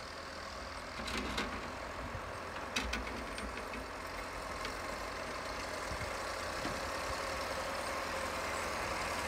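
Distant engine of a 64-year-old Volvo tractor-loader running as it plows snow with its front blade, slowly growing louder as it comes nearer, with a few faint clicks.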